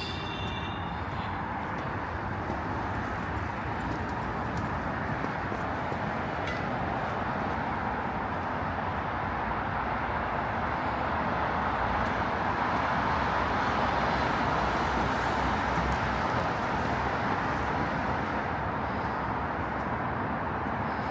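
Street traffic: a steady wash of passing cars, growing louder about halfway through and easing off again.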